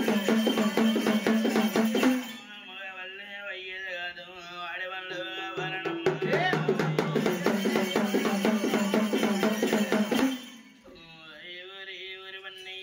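A man sings a devotional song to fast strokes on a rope-laced two-headed hand drum. The drumming stops about two seconds in while the singing goes on, comes back about six seconds in, and stops again near ten seconds, leaving the voice in long held notes.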